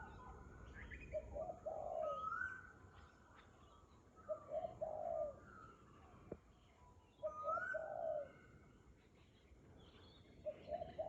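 Wild birds calling in a morning chorus. One call comes four times, about every three seconds: a short rising whistled note and then a pair of lower, rounded notes. Fainter chirps from other birds sound between them.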